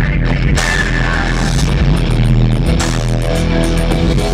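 Electronic intro music of a live arena concert played loud over the stage sound system, with a heavy, steady bass, heard from within the crowd.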